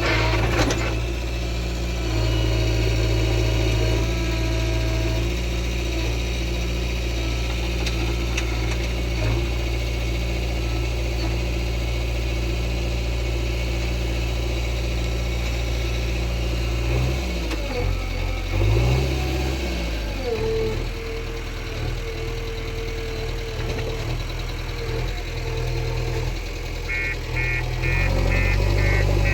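JCB 3DX backhoe loader's diesel engine running steadily, its pitch shifting briefly about two-thirds of the way through as the revs change. A rapid, evenly repeated high tone starts near the end.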